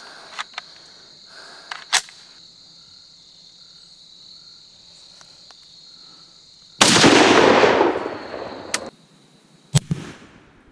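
A 1943 M1 Garand firing one .30-06 round about two-thirds of the way in: a single loud shot whose echo dies away over a second or two. Earlier there is a sharp metallic clack as the rifle is handled, and another sharp crack comes near the end. Steady insect chirring runs underneath.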